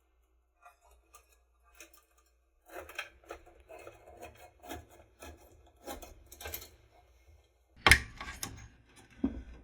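Power supply cables and plastic connectors being handled and pushed into place inside a desktop PC case: rubbing, scraping and light clicks. A sharp, loud click comes about eight seconds in, with a smaller one just after.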